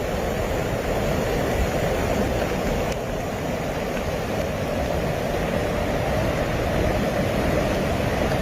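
Rushing floodwater: a loud, steady roar with no break.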